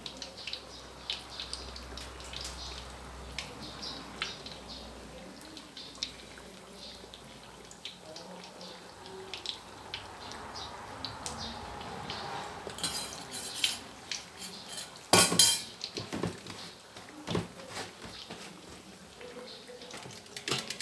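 Hot oil crackling and popping around slices of minced-pork-topped bread deep-frying in a wok, with a brief burst of loud clattering knocks about three-quarters of the way through.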